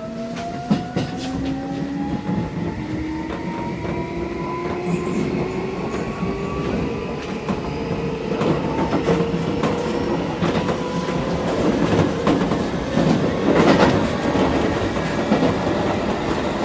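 Keisei 3400 series chopper-controlled electric train heard from inside the car while it picks up speed: traction motor and gear whine climbing steadily in pitch, with wheels clacking over rail joints.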